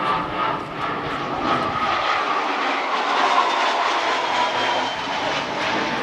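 Aircraft engine droning steadily, its pitch falling slowly.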